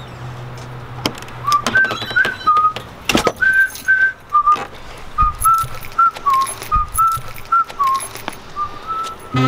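A person whistling a tune in a string of short notes, with a few sharp clicks and knocks among them.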